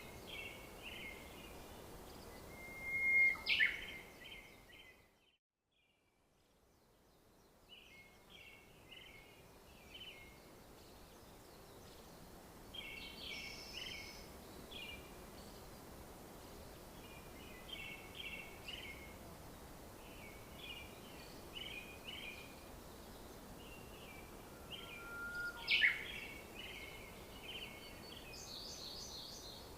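Songbirds singing outdoors in short chirping phrases that repeat every second or two, over a low background hiss. Two sharp knocks stand out as the loudest sounds, one a few seconds in and one near the end.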